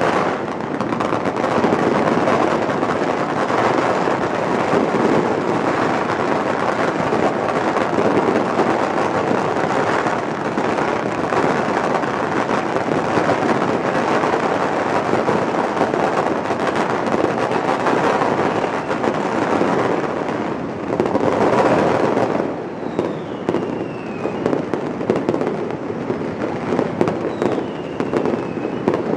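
Dense, unbroken barrage of firecrackers and fireworks going off all around, countless cracks and bangs running together, thinning slightly about three-quarters of the way through. Two short falling whistles come near the end.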